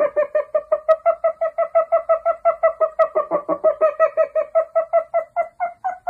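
Background music: a quick, evenly spaced run of short repeated notes, about six a second, that steps up in pitch right at the start.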